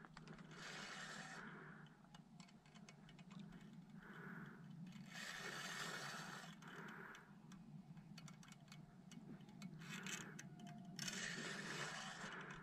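Fishing reel cranked in short spells with pauses between them while a hooked trout is played on a bent rod, a faint rapid ticking over soft hiss.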